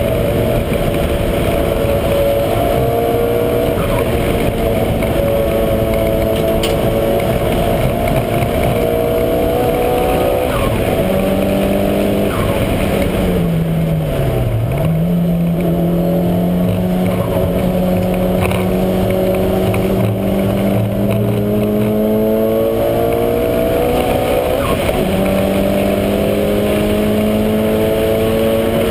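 Mitsubishi Lancer Evolution V's turbocharged 2.0-litre four-cylinder engine driven hard, its pitch climbing again and again as it pulls through the revs. About halfway through the revs drop sharply, then it climbs again.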